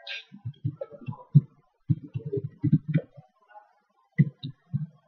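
Computer keyboard typing: a run of quick key presses, a few a second, pausing briefly near the end of the run before a few more keystrokes.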